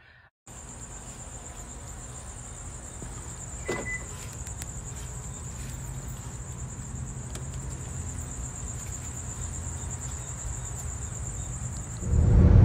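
Night insects trilling in a steady, high, continuous buzz over a low rumble. Near the end it gives way to louder road noise inside a moving car.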